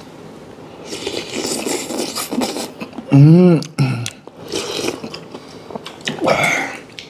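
Men eating spicy fish stew: slurping and chewing, with a loud hum of relish that rises and falls about three seconds in, and another slurp near the end.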